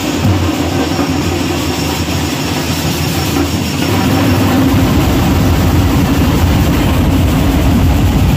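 A pad band of many large drums beaten with sticks, playing a dense, continuous rolling beat. The bass grows heavier and the whole sound a little louder about halfway through.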